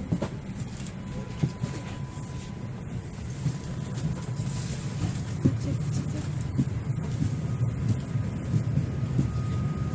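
Steady low rumble and hiss of an airliner cabin, with scattered light knocks and a faint steady high tone for a few seconds partway through.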